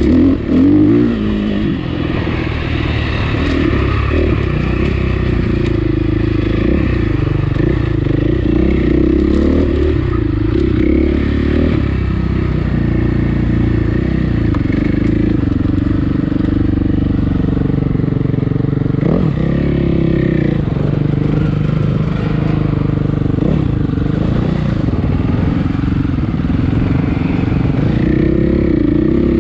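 Dirt bike engine running loud on a trail ride, its revs rising and falling again and again as the throttle opens and closes.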